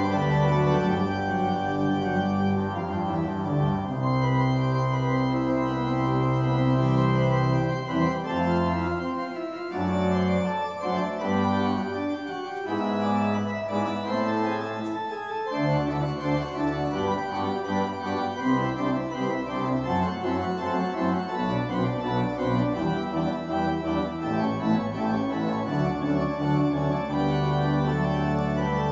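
Church organ playing slow sustained chords over held bass notes, turning to quicker, shorter notes about halfway through.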